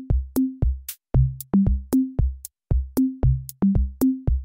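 Electronic background music: a steady drum-machine beat of kick drum and crisp hits under a short repeating synth bass line.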